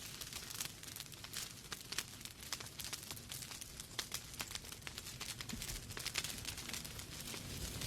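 Wood fire crackling in a fireplace: many small, sharp, irregular pops and snaps over a low steady rumble of the flames.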